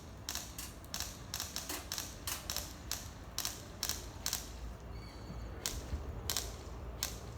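BB gun shots: an irregular string of short, sharp snaps, about two or three a second, with a short pause in the middle.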